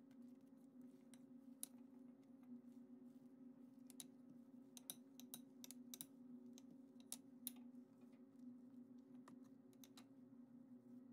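Faint scattered clicks and taps of hands working yeast dough and rolling it out with a wooden rolling pin on a countertop, over a steady low hum.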